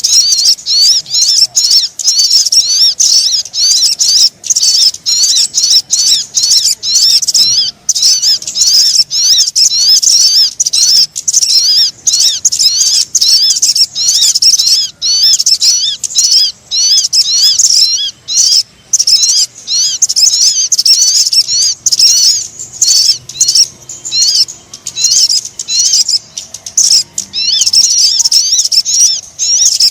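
Sogon bird calls played as a lure recording: dense, high-pitched twittering chirps repeating rapidly without a break.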